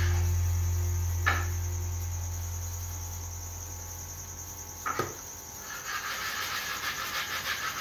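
Background music fading out over the first few seconds, under a steady high-pitched whine, with two sharp clicks, about a second in and about five seconds in.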